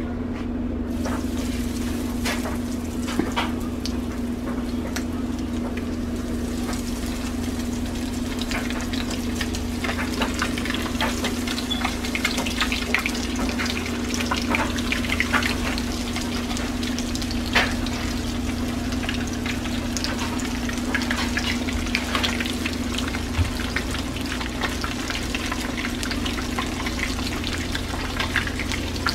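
Breaded fish fillets frying in hot oil in a skillet: a steady sizzle with frequent sharp crackles, growing busier a few seconds in as more fillets go into the pan.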